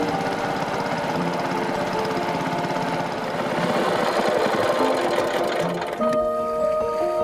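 Small boat engine running with a fast, even putter, under soft background music. About six seconds in the engine noise falls away and held music tones take over.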